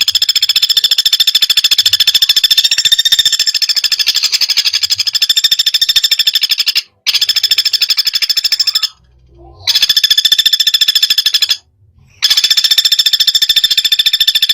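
Recorded songbird giving a rapid, high-pitched trill of very fast repeated notes in long bursts, broken by three short pauses, the kind of 'tembakan' burst song used to train cage birds.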